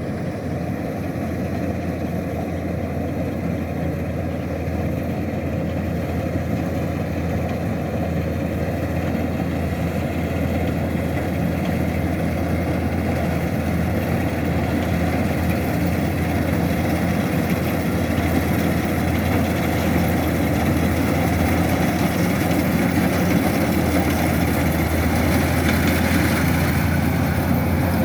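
Kubota DC-105X combine harvester's diesel engine running steadily with a low drone, growing gradually louder.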